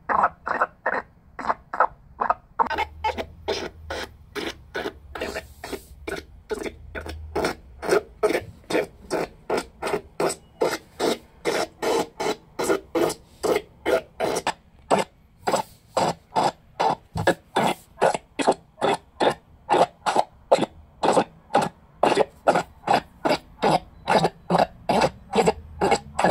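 Portable FM radio tuned to 95.9 FM, its speaker playing a strange repeating pulse from the station instead of normal programming: short, even pulses a little over two a second, going on without a break.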